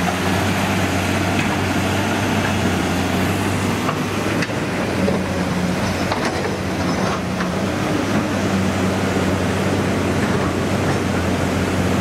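A heavy earthmoving machine's diesel engine running steadily, over the rushing of a flooded river. A few light knocks sound now and then.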